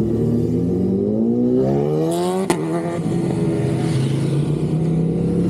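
Motorcycle engine with 144,000 miles on it pulling hard, rising in pitch, then a sharp click as it shifts up about two and a half seconds in. The pitch drops and it runs on steadily.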